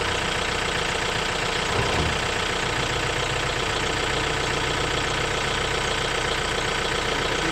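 A vehicle engine idling steadily, an even running sound with no change in pitch or level.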